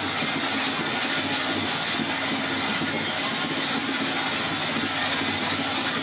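Vertical band sawmill running, its band blade sawing a board off a log. It is a steady machine noise with a high hiss from the cut that drops away and comes back a couple of times.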